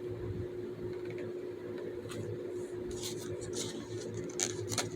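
Small objects being handled: a few faint clicks and rustles from about three seconds in, over a steady low hum.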